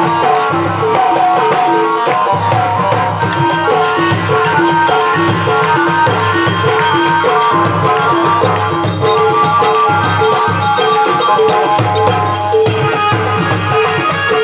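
Instrumental interlude of a bhajan band: hand drum and jingling percussion keep a steady beat under a short melodic phrase that repeats over and over.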